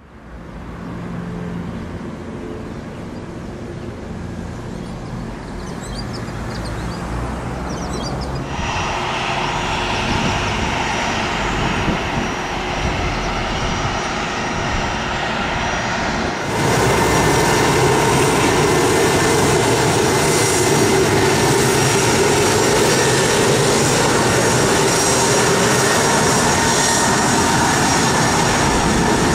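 Twin rear-mounted turbofan engines of a Bombardier Challenger business jet running, a steady jet rush with a high whine. It is quieter at first, grows louder, and steps up suddenly just past halfway, then stays loud and steady.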